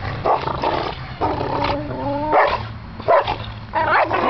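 Dogs barking and growling in play, in a run of short bursts.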